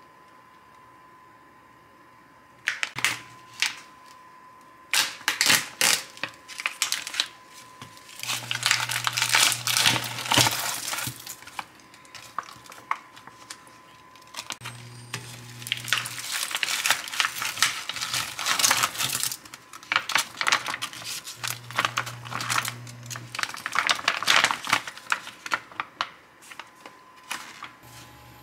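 Crinkling and crackling handling noises with scattered light clicks and clinks, in irregular bursts that start a couple of seconds in. A low hum comes and goes three times.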